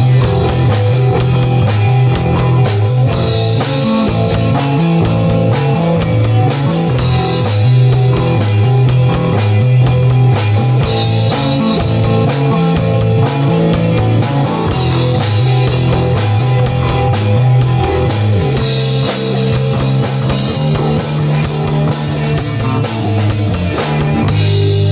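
Rock band with guitars and a drum kit playing an instrumental stretch of a song over a moving bass line, with fast steady cymbal taps. Near the end the drums stop and a final low chord rings on.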